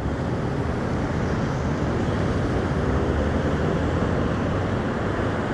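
Steady road traffic noise from cars and trucks driving through a busy intersection, a low, even rumble with no single event standing out.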